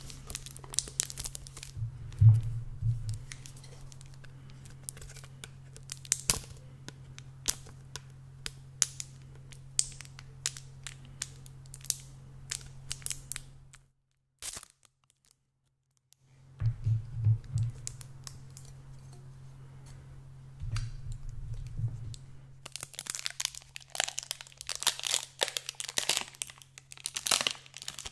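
Fingertips scratching and tapping on the metal mesh grille of a Blue Yeti microphone: a dense run of crackly clicks and scratches over a low steady hum. About two seconds of silence come just before the middle, and the scratching grows louder and denser near the end.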